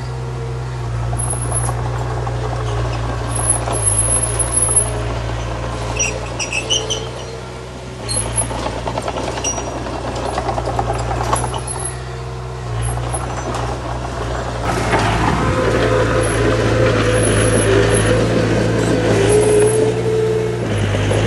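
Heavy diesel earthmoving machinery running steadily, with metallic clanks and squeaks over the engine. It grows louder from about two-thirds of the way in.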